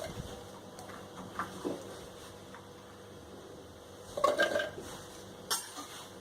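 Sweet corn kernels being added to a mixer-grinder jar: soft knocks and patter, then a ringing clatter of utensils against the jar about four seconds in.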